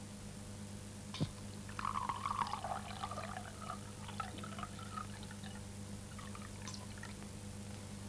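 Liquid trickling from a glass burette into a small glass bottle, its gurgle wavering and sinking in pitch, after a light glass click about a second in; a few small clinks follow near the end. A steady electrical hum lies underneath.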